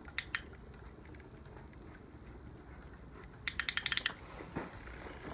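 Beauceron turning and stepping about on a wooden tabletop, making light clicks: two near the start, then a quick run of about ten sharp clicks a little past halfway.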